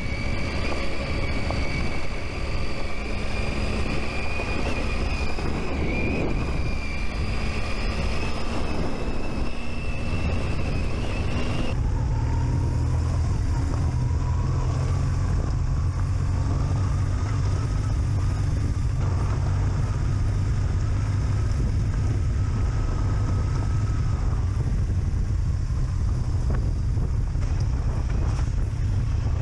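Adventure motorcycle engine running while riding a gravel track, its pitch slowly rising over the first dozen seconds. About twelve seconds in, the sound changes abruptly to a deeper, steadier rumble.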